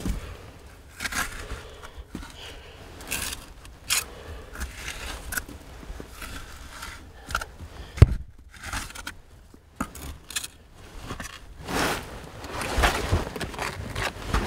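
Digging and scraping by hand through loose ash, cinders and clay rubble in an old privy pit: irregular crunching scrapes, with one sharp knock about halfway through.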